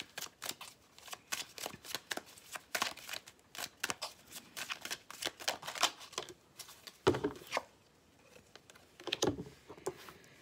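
A tarot deck being shuffled by hand: a quick, dense run of soft card clicks and rustles, followed by two louder taps in the second half.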